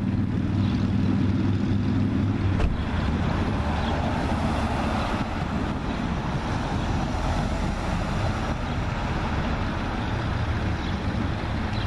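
An engine runs steadily with a low hum. The hum weakens after about three seconds, leaving a broad rushing noise.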